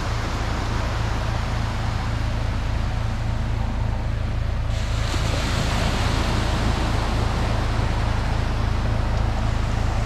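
Sea waves breaking and washing up the sand in a steady rush that swells about halfway through, over a steady low rumble.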